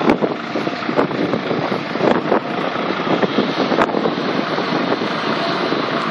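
Large crawler excavator running while it loads sand into a steel tipper truck body, with wind buffeting the microphone throughout.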